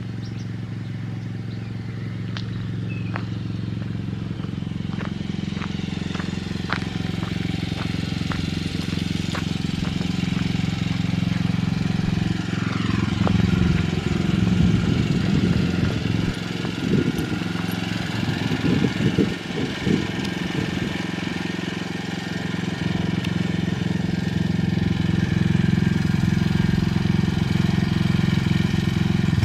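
A vehicle engine running steadily, its low hum slowly growing louder, with a few scattered clicks in the first ten seconds.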